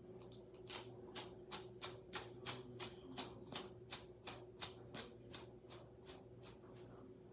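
Hairbrush bristles dragged through long hair in quick strokes, about three swishes a second, starting about a second in and stopping shortly before the end.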